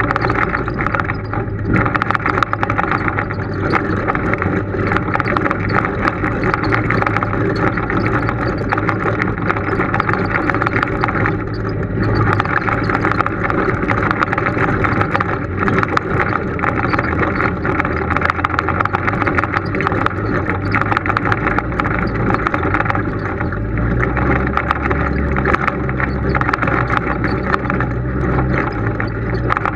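Polaris RZR side-by-side engine running steadily as the machine crawls over a rocky forest trail, with frequent knocks and rattles from the bumps. The engine note deepens about three-quarters of the way through.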